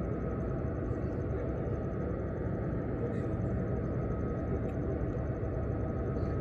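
Steady low rumble of harbour background noise, with a faint high hum over it and no distinct events.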